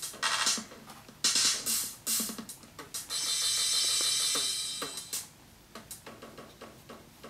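Hell Synth noise synthesizer running its 'From Hell' program while its knobs are turned: glitchy electronic hits like a drum machine's hi-hats, a few short noise bursts, then a sustained hiss for about two seconds that drops away to quieter, choppier clicks about five seconds in.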